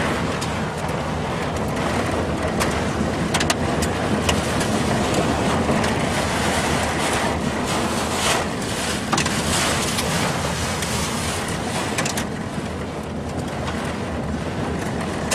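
Tornado wind and heavy rain battering a truck: a loud, steady rushing, broken all through by sharp ticks and cracks of things striking the body.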